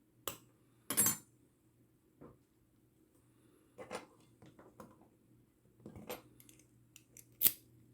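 Small metal lock parts and tools being handled, giving irregular sharp clicks and clinks about a second apart, the loudest one near the end, over a faint steady low hum.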